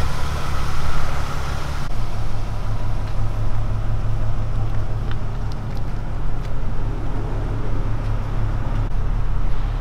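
3.2-litre VR6 engine running steadily at idle, with a low even hum; the sound changes abruptly about two seconds in.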